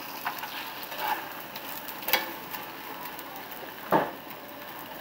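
Corn tortilla pieces and egg sizzling in a cast iron skillet while a spatula stirs and scrapes them. Two sharper knocks of the spatula on the pan, about two and four seconds in.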